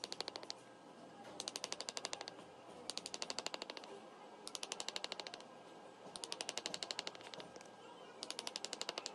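Engraving chisel being tapped into the steel action of a 12-bore shotgun, cutting scrollwork: bursts of rapid metallic ticks, about six bursts each under a second long, with short pauses between.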